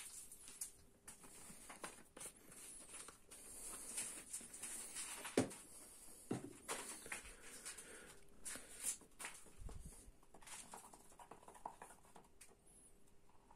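Faint clicks, taps and rustles of a plastic bottle and plastic mixing cup being handled on a workbench while mixing resin, with a louder knock about five seconds in, and a wooden stick stirring in the cup near the end.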